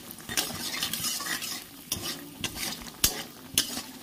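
Bori (dried lentil dumplings) sizzling in shallow oil in a kadai while a metal spatula scrapes and knocks against the pan to turn them, a stroke every second or so. They are being fried to a reddish brown.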